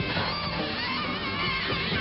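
Live jazz band playing: an alto saxophone plays a wavering, bending line over drums and a steady bass groove.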